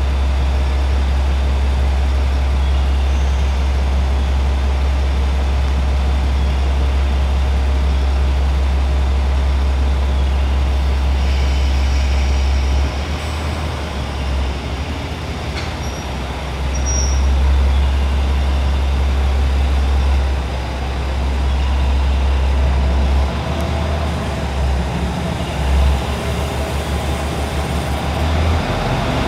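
KiHa 41 diesel railcar, a rebuilt KiHa 47, idling while it stands at a station platform: a steady, deep engine hum that wavers irregularly from about halfway through.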